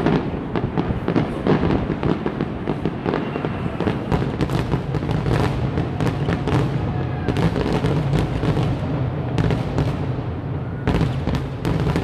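Aerial fireworks display: a dense run of shell bursts, several bangs a second, over a steady low rumble.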